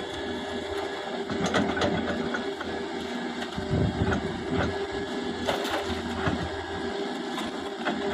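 Doosan 180 excavator's diesel engine running steadily, with scattered knocks and clanks.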